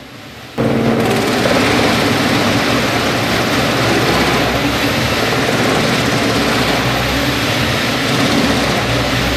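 Large wood chipper running under load, a loud, dense grinding and shredding noise over a steady engine drone. It starts abruptly about half a second in and cuts off near the end.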